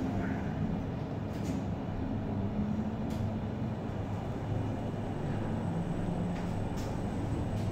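Schindler passenger lift car travelling upward, heard from inside the car: a steady low rumble and hum, with a few faint clicks.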